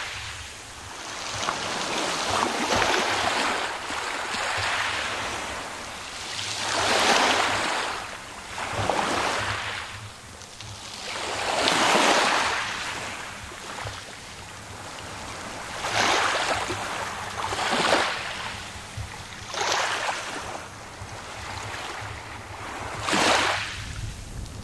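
Small sea waves washing onto the shore, each surge of hiss swelling and fading every two to four seconds.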